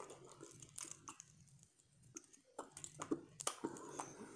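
Faint eating sounds: chewing, with small clicks and cracks as blue crab shell is picked apart by hand. The clicks thin out in the middle, then come in a quick run near the end.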